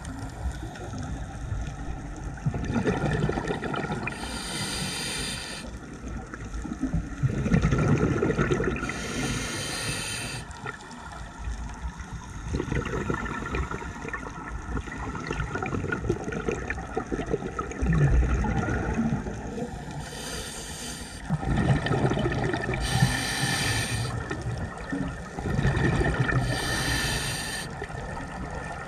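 Scuba diver breathing through a regulator underwater, heard through the camera housing. A hiss on each inhale alternates with a low bubbling rumble of exhaust bubbles on each exhale, in a slow, uneven rhythm.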